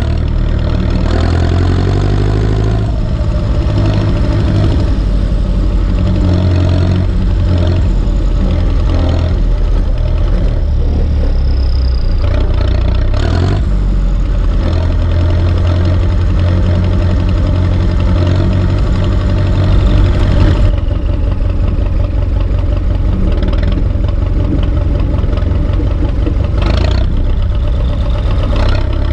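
Turbocharged Ursus C-360 tractor's diesel engine running steadily, with a few short knocks.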